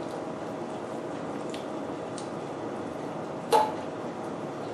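Close-miked eating sounds: soft, wet chewing and small clicks of utensils against a bowl over a steady background hiss. About three and a half seconds in comes one louder, short mouth or utensil sound.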